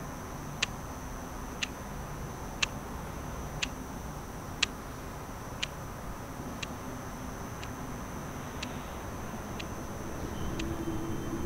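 A clock ticking steadily, once a second, over a low background rumble and a thin, steady high-pitched whine.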